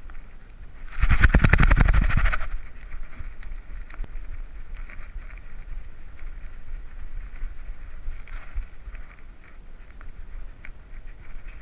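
Handling noise from a GoPro strapped to a dog, its harness and housing rubbing and knocking as the dog moves. About a second in comes a loud, fast rattle of knocks lasting about a second and a half; after that a steady rustle and buffeting with occasional small clicks.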